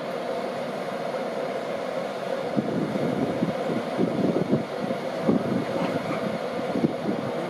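An LNER InterCity 225 train pulling slowly out of the platform: a steady rumble of its wheels on the rails, with irregular low clunks and a constant mid-pitched hum.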